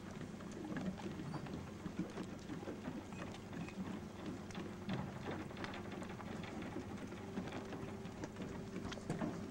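Light rain pattering, many small scattered ticks over a faint steady low hum.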